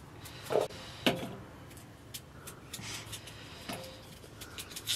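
Potatoes being peeled by hand with small knives, with fine cutting clicks. Several sharp knocks come from peeled potatoes set down in a steel basin, a few of them followed by a brief ringing tone from the basin.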